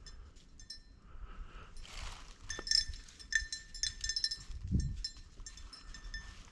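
Bell on a hunting dog's collar jingling in irregular clinks as the dog runs and tracks. While the bell keeps ringing, the dog is moving, not on point. A rustle through brush about two seconds in and a low thump near the end.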